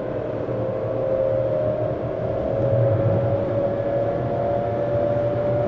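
Tokyu 7700 series electric train running, heard inside the passenger car: a low rumble of wheels on the rails under a steady traction-motor whine that edges slightly higher in pitch toward the end.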